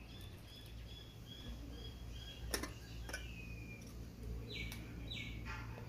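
Bird chirping: a run of short high notes about four a second, then a falling call and two more downward calls near the end. A single click sounds about two and a half seconds in.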